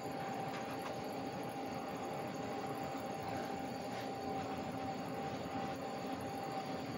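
Handheld gas torch burning with a steady hiss as its flame is played over carved pine wood to scorch the surface.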